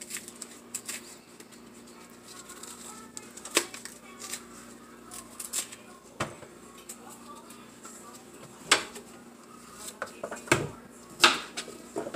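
Scattered clicks, knocks and clatters from peeling green bananas by hand with a kitchen knife over a stainless steel sink: the knife tapping a plastic cutting board and peels dropping into the sink, with the sharpest knocks near the end.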